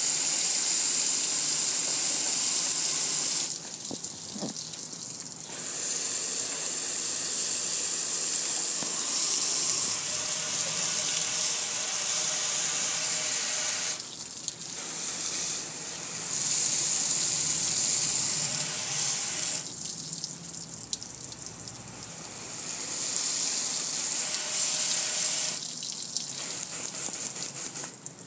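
A jet of water spraying onto a metal gas grill, a strong steady hiss with water splashing and streaming off the grill. The spray stops four times, briefly leaving only splashing and dripping, then starts again.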